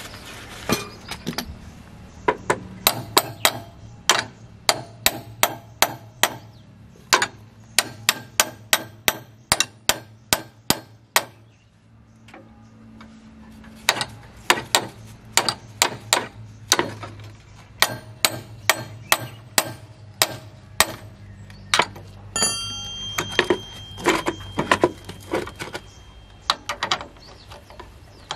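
A hammer strikes steel on the blade assembly of a rotary tiller in a quick series of blows, about two a second, each with a short metallic ring. The blows stop for about two seconds near the middle, then start again.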